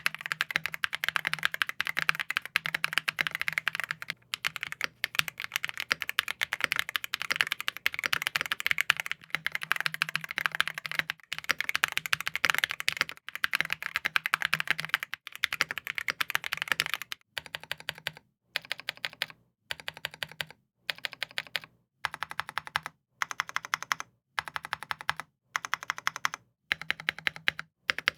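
Typing on a Keychron Ultra mechanical keyboard: a fast, continuous run of keystrokes, then, from about two-thirds of the way in, short bursts of typing with brief pauses between them.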